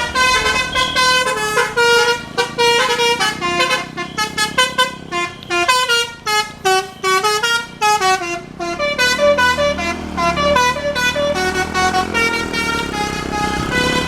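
Bus telolet Basuri melody horn playing a fast tune of short notes that step up and down in pitch, with a bus engine running underneath in the second half.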